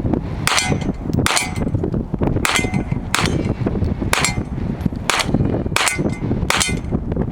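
A gun fired eight times in an unhurried string, about one shot a second, at a steel target, with now and then a clang of steel.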